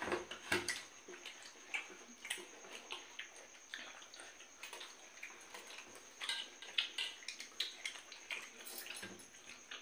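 Eating sounds from several people at a table: chewing and lip smacks, with fingers tearing roti and scraping steel plates, heard as irregular short wet clicks and smacks.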